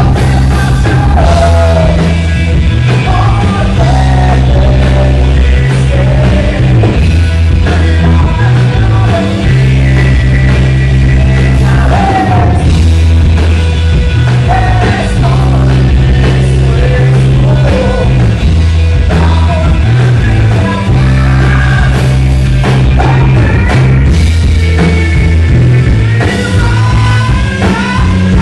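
Live rock band playing loud, with a male singer over electric guitar and heavy bass.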